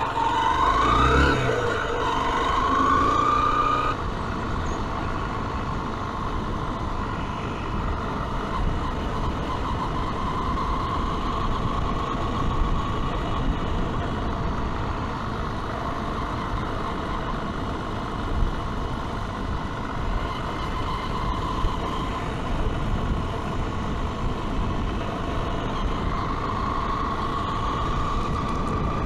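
Zontes T310 motorcycle's single-cylinder engine accelerating away. Its pitch rises twice, with a gear change between, in the first few seconds, then it runs at a steady cruising pitch over constant wind noise.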